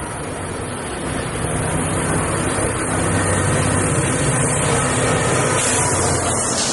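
NJ Transit EMD GP40-type diesel locomotive passing with a train of coaches, its engine running with a steady low drone that grows louder over the first two seconds as it draws close. Near the end the coaches roll by with a rising hiss of wheels on rail.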